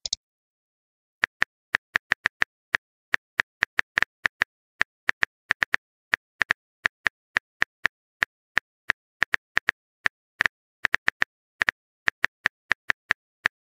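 Phone keyboard typing clicks, one short click per letter as a text message is typed out, irregular at about three to four a second and starting about a second in.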